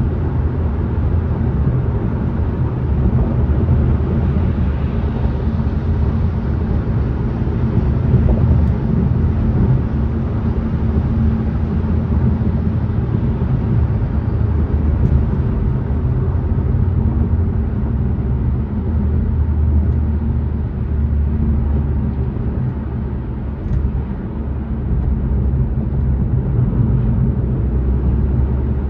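Car driving at a steady speed: a continuous low rumble of road and engine noise with no distinct events.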